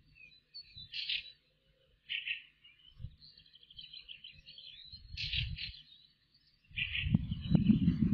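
Small birds chirping in short high phrases about once a second, with a quick trill in the middle. Near the end a louder low rumble with a few knocks comes in.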